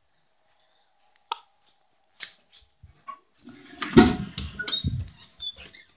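Close handling noise on the camera's microphone: scattered clicks, then muffled rubbing and knocking that is loudest about four seconds in, with a few short squeaky tones, as the camera is held up against a mouth.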